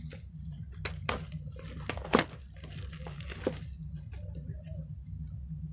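Clear plastic packaging crinkling and tearing as it is peeled off a paperback book: a run of irregular sharp crackles, the loudest about two seconds in.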